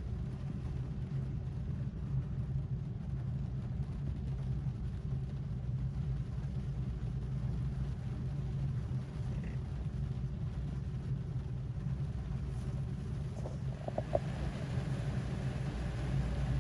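Rain falling on a car's roof and windows, heard from inside the cabin as a steady, muffled low drumming, a little stronger in the last few seconds.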